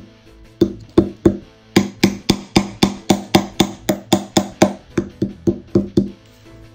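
Plastic hammer tapping a chisel into a chalky mineral-dig block: a quick, even run of about twenty sharp knocks, roughly three or four a second, with quiet background music under them.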